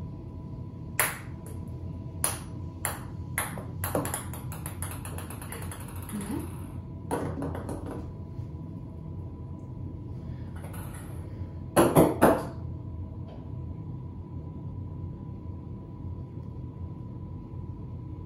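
A small hard ball bouncing on a hard surface, its strikes coming closer and closer together until they run into a rapid patter and die away. Near the middle there is a short cluster of loud, sharp strikes.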